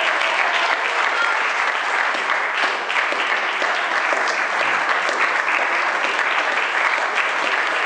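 A crowd applauding: many hands clapping in a dense, steady patter.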